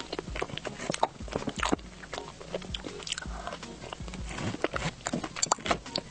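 Close-miked chewing of a soft cream-filled pastry: a string of wet mouth clicks and smacks, irregular and quick.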